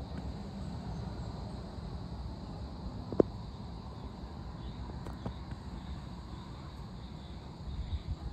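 A steady, high chorus of insects over a low rumble. One sharp click comes about three seconds in, and a fainter one about two seconds later.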